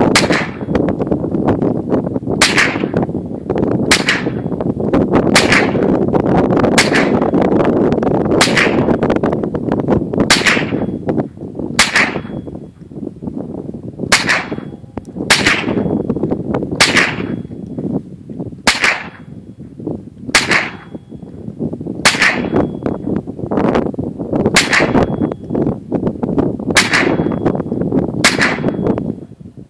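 HK MP5 .22 LR rifle fired one round at a time, a sharp crack roughly every one and a half to two seconds, about eighteen shots in all. A steady low rushing noise runs under the shots, louder in the first half.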